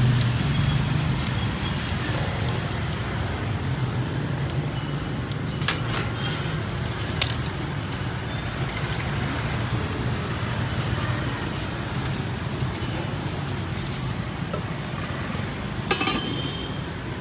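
Steady street traffic, motorbike engines running, with a low engine hum strongest in the first second or so. A few sharp clicks and rustles, at about six, seven and sixteen seconds in, come from a styrofoam food box being closed and a plastic bag being handled.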